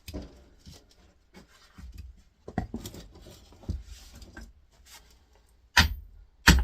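Metal knocking, clinking and scraping as an axe blade is set and positioned on a compressor's electric motor, ending in two sharp, loud knocks near the end.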